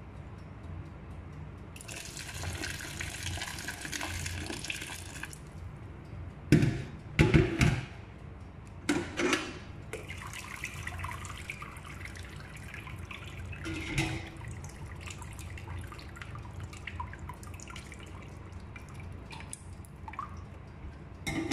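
Sauce pouring and draining through a stainless steel mesh strainer into a pot, with a steady splashing run of liquid for a few seconds, then a handful of loud knocks of the strainer against the pot about six to nine seconds in.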